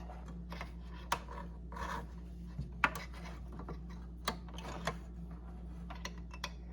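Thread being drawn through a sewing machine's thread guides by hand: soft rubbing and scraping with scattered light clicks, over a faint steady hum.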